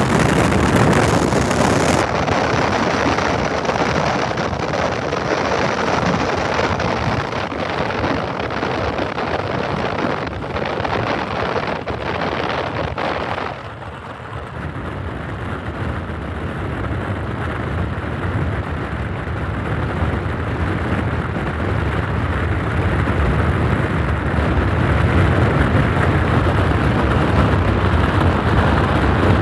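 Freight train of hopper and tank cars rolling past: a steady, dense rumble of wheels on the rails. The sound dips briefly about halfway through, and a deeper rumble builds near the end as locomotives come up.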